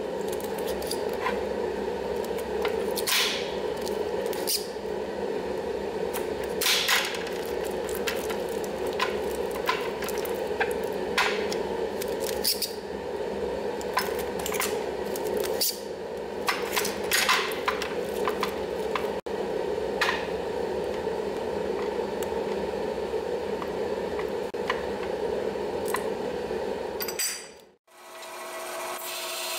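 Packing tape pulled off a handheld tape dispenser and laid onto an aluminium intercooler core: repeated short rips and taps over a steady hum. Near the end the sound cuts out, and a bandsaw starts running.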